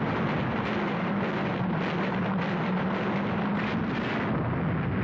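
Steady, dense roar with a constant low engine drone: a warplane's engine over the din of anti-aircraft fire.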